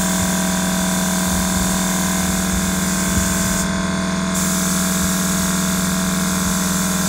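Gravity-fed spray gun hissing as it sprays paint, breaking off for under a second about halfway through as the trigger is let go and then starting again. Under it runs a steady motor hum.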